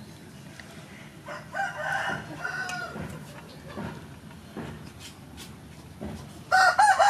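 Rooster crowing twice, a fainter crow about a second and a half in and a loud one near the end, with light clicks of a fork against snail shell and a steel plate between them.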